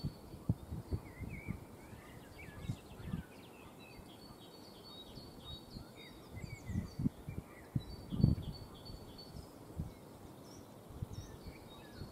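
Several songbirds singing, a steady mix of short chirps and trills, over low gusts of wind buffeting the microphone, the strongest about eight seconds in.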